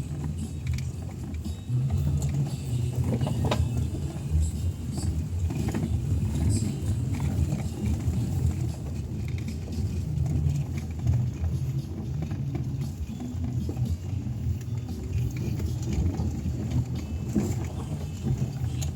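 Steady low rumble of a car driving, engine and road noise heard from inside the vehicle.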